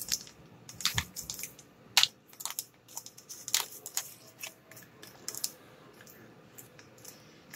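Packaging of an incense pack crinkling and crackling as it is worked open by hand: an irregular run of sharp crinkles and crunches that thins out over the last couple of seconds.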